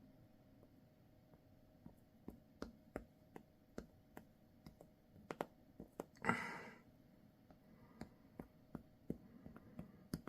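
Faint, irregular small clicks and taps of thin lock picks and plastic handle pieces being handled and pressed together during gluing, with a short rustle about six seconds in.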